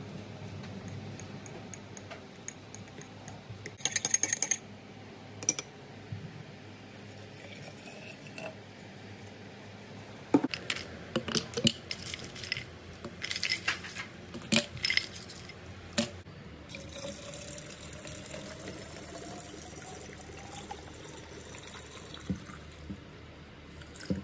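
A metal spoon clinks against a ceramic mug while honey is stirred into warm water. Ice cubes then drop clinking into a glass bottle, one after another. Water is poured into the bottle, its tone rising in pitch as the bottle fills.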